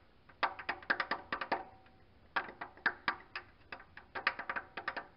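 A small plastic-headed hammer tapping the steel crankshaft timing-belt sprocket of a 1997 Nissan Pathfinder's 3.3-litre V6, in four quick bursts of light taps, to work the sprocket loose off the crankshaft.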